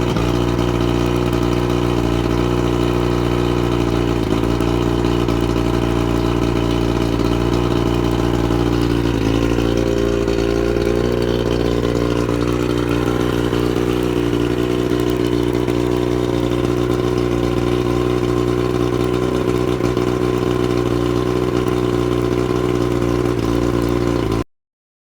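1989 Mercury 100 HP two-stroke outboard motor running steadily at idle after its rebuild, with a slight change in pitch about nine seconds in. The sound cuts off abruptly near the end.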